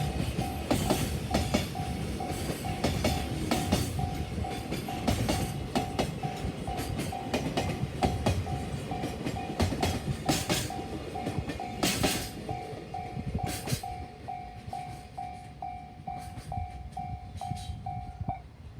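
A train passing over a level crossing: a dense rumble of wheels on rail with sharp clacks over the rail joints, fading over the second half. Throughout, the crossing's electronic warning bell rings in an even, rapid ding-ding and stops just before the end as the crossing clears.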